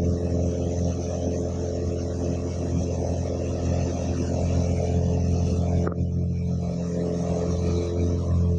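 Floatplane engine and propeller droning steadily, heard from inside the cabin.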